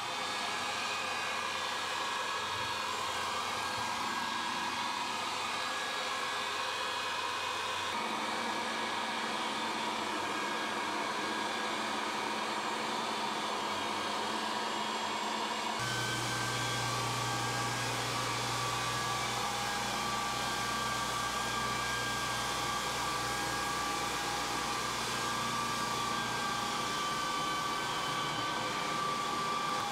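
Electric floor sanders running steadily on hardwood flooring: for the first half, a rental edger sanding along the wall. After an abrupt change about halfway through, a larger upright floor sander with a dust bag takes over, adding a lower hum.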